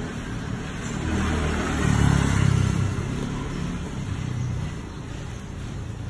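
A passing road vehicle's engine, growing louder to a peak about two seconds in and then fading, over a steady background noise.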